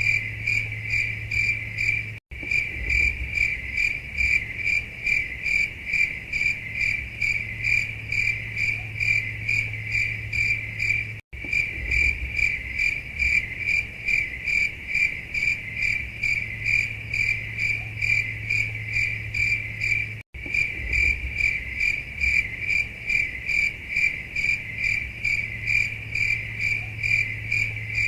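Crickets chirping in a rapid, even pulsing over a low steady hum, the stock 'awkward silence' sound effect. The sound cuts out briefly three times, about nine seconds apart.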